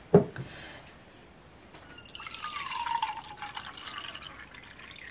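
Water poured from a plastic bottle into a mug, a splashing trickle that starts about two seconds in. A single sharp knock comes right at the start.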